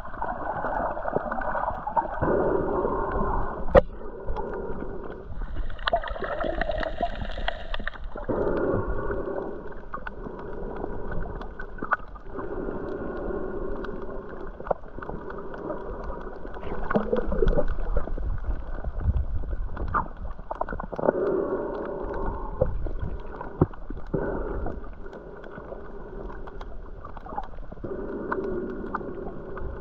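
Muffled underwater sound from a snorkeller's action camera held below the surface, with water noise that swells and falls every few seconds. Scattered sharp clicks run through it.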